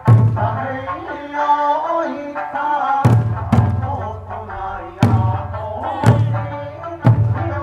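Eisa drumming: big barrel drums struck together in heavy, spaced strokes, several falling in pairs about half a second apart, over a sung Okinawan folk melody. For about the first three seconds the singing carries on almost alone between strokes.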